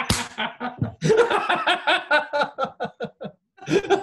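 A man and a woman laughing heartily together in quick repeated pulses, with a brief pause about three and a half seconds in.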